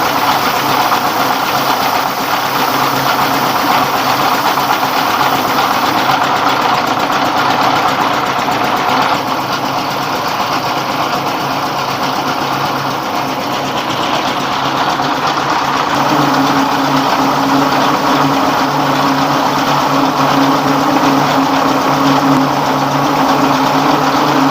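A rice husker driven by a 24 hp dompeng diesel engine runs steadily while rice is fed through it for a second husking pass: a dense mechanical rush of grain and machinery over the engine's hum. About two-thirds of the way in, the engine's low hum grows stronger.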